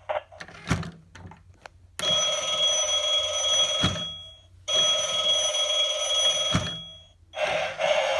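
Gemmy animated vintage telephone prop ringing through its small speaker: a few clicks, then two long rings of about two seconds each, half a second apart, with short knocks in between.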